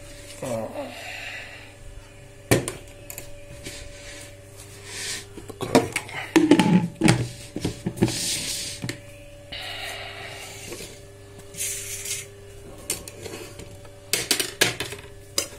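Food containers being handled and a tight lid worked open: scattered knocks and clinks with stretches of scraping and rubbing, the busiest about halfway through, over a faint steady hum.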